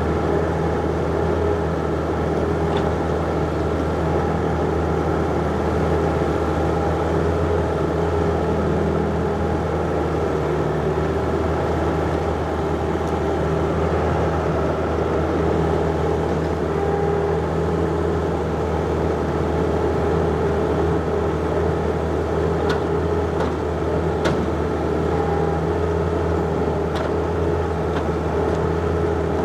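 John Deere 50ZTS mini excavator's diesel engine running steadily under work, with a few light clicks or knocks near the end.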